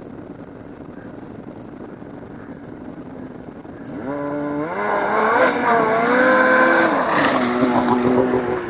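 Snowmobile engine running steadily at a distance, then revving hard about four seconds in, its pitch climbing and wavering at full throttle as the machine skims across open water, before easing back to a lower steady pitch near the end.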